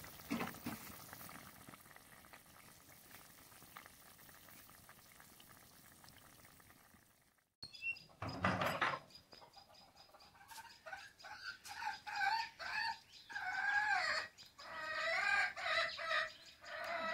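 A wok of fish curry bubbling at a simmer, a faint steady hiss. After a break about seven seconds in and a loud thump, domestic chickens cluck over and over in short, bending calls.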